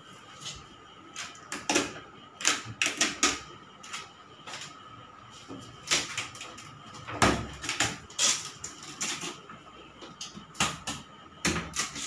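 Irregular clicks, knocks and rattles of a new refrigerator's shelves and drawers being handled and fitted, in quick clusters with short gaps, over a faint steady whine.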